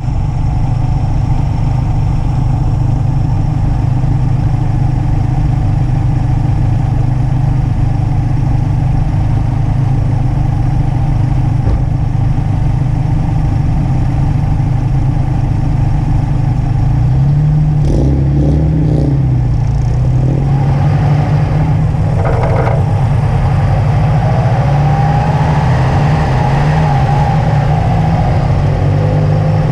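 2005 Subaru WRX wagon's turbocharged flat-four engine running steadily at speed, its note dipping and climbing again with a few short knocks about two-thirds of the way in, then rising and falling as the car accelerates and lifts.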